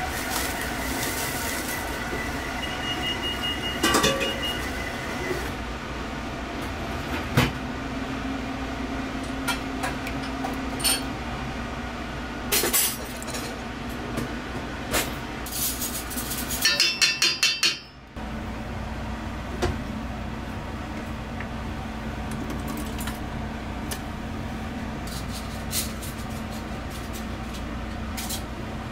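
Scattered clinks of glass and utensils over a steady mechanical hum, with a quick run of ringing clinks about seventeen seconds in.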